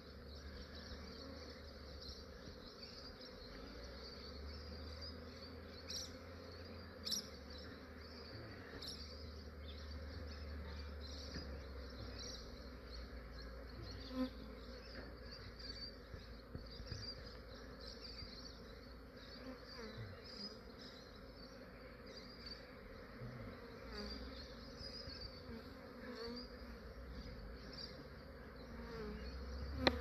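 A large swarm of honey bees humming steadily, with a couple of brief knocks along the way.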